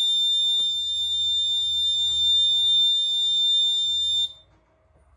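Piezo buzzer alarm of an Arduino accident-detection circuit sounding one continuous high-pitched tone, the alert for a detected high-impact crash. It cuts off suddenly about four seconds in as the system returns to normal.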